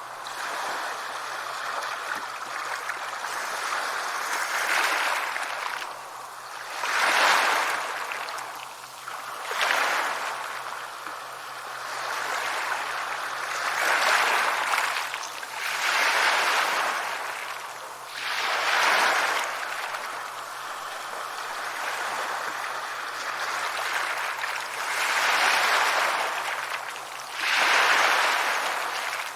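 Sea waves breaking and washing back in a steady rush, swelling louder every few seconds, about eight times over the half minute.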